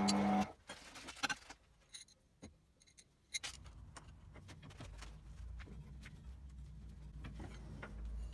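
A bench drill press motor running, which stops about half a second in. Then scattered light clicks and taps of a thin aluminium strip being handled and set against a steel bench vise, over a low hum that comes in about five seconds in.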